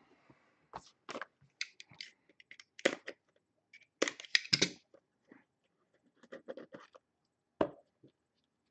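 Box cutter scraping along the seal of a small cardboard trading-card box, then the box being handled and opened: an irregular string of short scratches, scrapes and clicks, the loudest about three and four to five seconds in.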